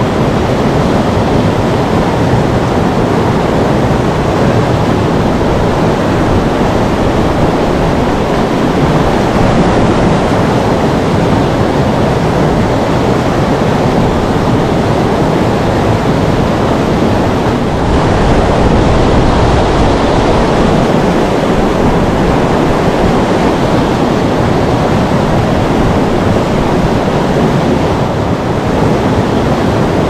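Waterfall, water pouring down in a loud, steady rush.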